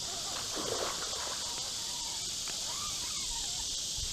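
Steady, high-pitched insect chorus, with a few faint clicks.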